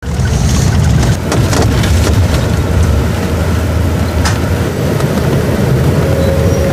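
Inside a moving bus: steady low rumble of the engine and tyres on the road, with a few sharp rattles and clicks from the cabin.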